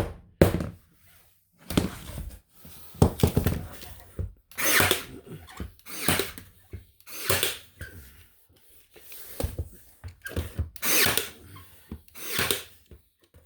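Ryobi AirStrike cordless 18-gauge narrow crown stapler firing staples into plywood and masonite underlayment, about ten shots at an uneven pace of roughly one a second.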